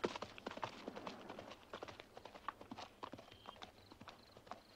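A horse's hooves beating quickly on dry ground, several hoofbeats a second, loudest at the start and fading as the horse moves away.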